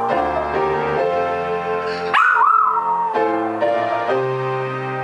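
A Pomeranian howling along to piano chords played on an electronic keyboard. One long howl slides down in pitch and ends about half a second in; a second starts about two seconds in, rising, wavering, then falling away over a second or so.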